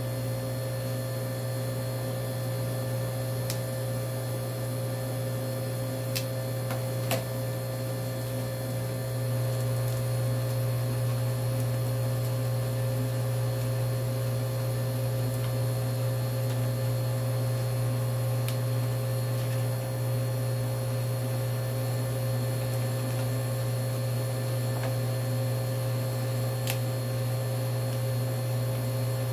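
Steady low electrical hum, with a few faint light clicks.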